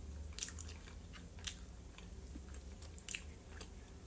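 Close-up chewing of fried potatoes, with wet mouth clicks and smacks; three louder smacks come about half a second in, at a second and a half, and just after three seconds.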